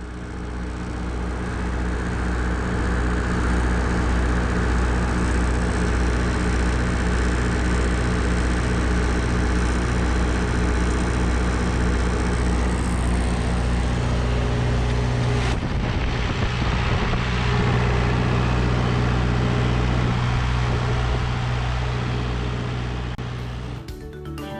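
Diesel engine running steadily, on the refrigerated semi-trailer's cooling unit or on the truck. There is a click about fifteen seconds in, after which the low tone of the engine changes.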